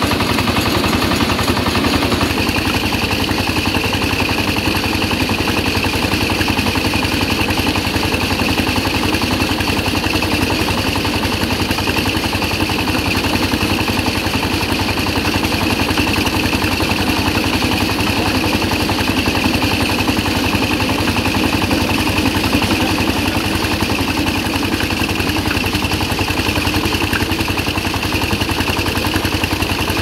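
Small motor driving a homemade model rice thresher drum, running steadily with a fast continuous rattling clatter as rice grains pass through and spill out of the chute. Its lower tone shifts slightly about two seconds in.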